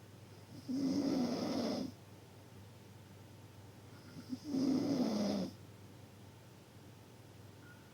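Loud snoring: two long snores about three and a half seconds apart, each lasting about a second, with a low droning pitch that sags slightly toward its end.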